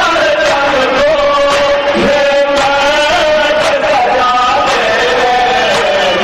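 Men's voices chanting a noha, the Muharram lament, in long held notes with small slides in pitch.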